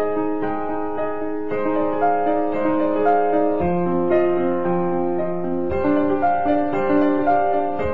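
Slow background music of sustained notes and chords, the harmony changing every two seconds or so.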